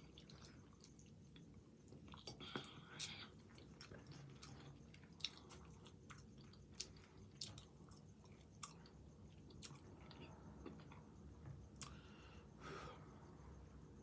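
Faint close-up chewing of creamy chicken fettuccine Alfredo, with short mouth clicks and smacks scattered irregularly throughout.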